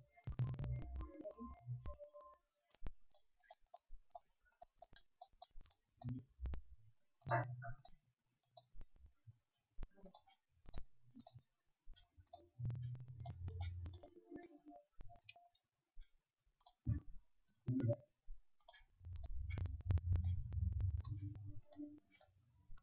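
Computer keyboard typing: irregular runs of short keystroke clicks with brief pauses between words. A low rumble comes twice, once about halfway through and again near the end.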